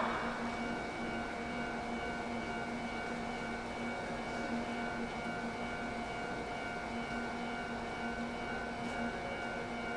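Railway station platform hum: a steady electrical drone made up of several fixed tones, one higher tone pulsing gently, over a low background rumble.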